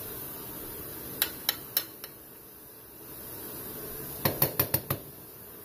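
Light clinks of kitchenware, sharp and quick: a run of four about a second in and a run of five about four seconds in.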